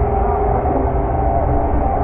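Balloon Race fairground ride running: a steady low rumble with a constant hum over it.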